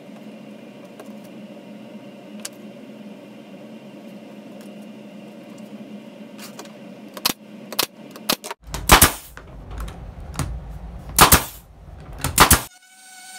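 Pneumatic stapler firing 5/8-inch staples into a wooden frame's glued half-lap corners. It gives several sharp shots in the second half, three of them loud, over a steady low hum.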